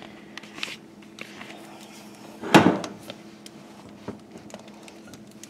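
Light clicks of kitchen tongs working a salmon fillet in a glass mixing bowl, with one louder knock about two and a half seconds in, over a faint steady hum.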